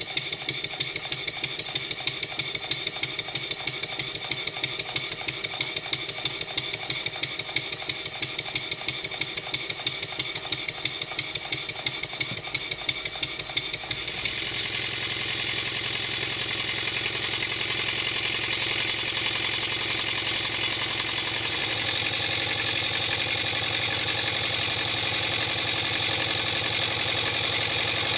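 Stuart "James Coombes" model table engine running on compressed air: regular exhaust beats with light mechanical clatter. About halfway through, the sound changes suddenly to a louder, steady hiss in which the beats run together.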